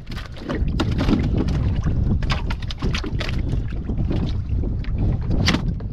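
Water sloshing and splashing around the microphone, with many sharp splashes and knocks over a heavy low rumble of water and wind buffeting the mic.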